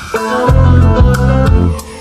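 Hip-hop/R&B song's beat: deep bass notes under a plucked melody with sharp ticking percussion, the bass dropping out near the end.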